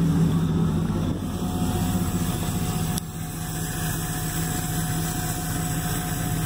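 A steady low mechanical hum. About three seconds in there is a click, the level dips a little and a higher steady tone joins.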